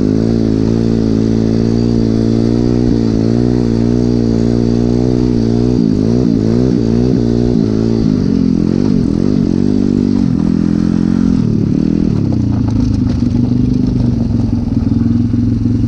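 Regulmoto Seven Medalist 150E pit bike's single-cylinder engine running under way. Engine speed rises and falls with the throttle from about six to ten seconds in, then settles lower and steadier as the bike slows near the end.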